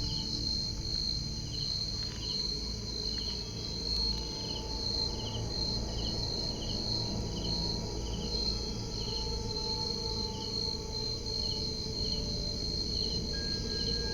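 Night insects: crickets trilling in one unbroken high note, with another insect chirping at a regular beat of roughly three chirps every two seconds, over a low rumbling background.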